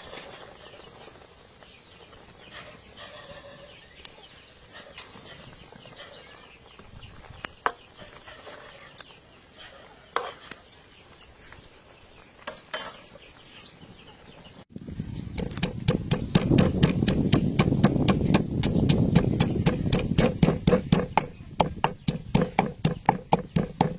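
A few sharp clinks of a metal spatula against a wok of simmering broth. Then, about two-thirds in, a pestle starts pounding chopped aromatics in a metal mortar with rapid, even strokes, the loudest sound.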